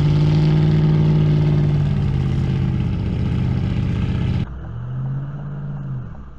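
A vehicle engine held at steady high revs under heavy load as a stuck car is towed out of deep sand. The sound is a loud, even drone. About four and a half seconds in it cuts off sharply to a quieter vehicle hum that briefly swells and fades.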